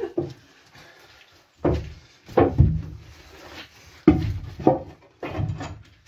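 Heavy wooden floor timbers knocking and thudding as they are lifted, carried and dropped in the stripped hull: about five sharp knocks with short rustles between.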